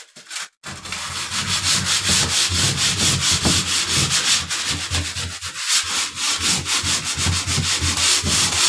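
Varnished wooden door being hand-sanded with 80-grit sandpaper, in quick back-and-forth rubbing strokes that start about a second in. The sanding scratches up the varnish so the primer coat will key to it.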